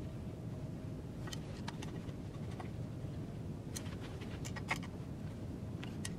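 A few scattered light clicks and taps of metal hand tools and small parts being handled, over a steady low background hum.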